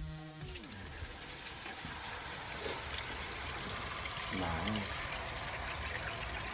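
Water running in a steady trickle, as from a hose or tap filling water balloons or water guns.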